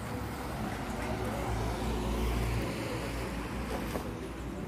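Street traffic noise: a vehicle passing along the road, its low rumble swelling about two seconds in and then easing off.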